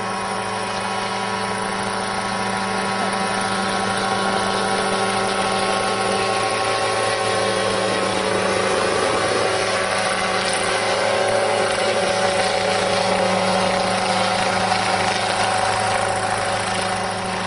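Engine and rotor of a small unmanned crop-spraying helicopter running steadily as it flies low spraying pesticide. It grows a little louder through the middle and eases off near the end.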